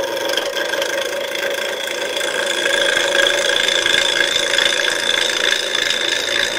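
Wood lathe spinning a maple blank while a turning tool cuts into it, throwing off shavings: a steady whirring hiss with a high whine over it, a little louder in the middle.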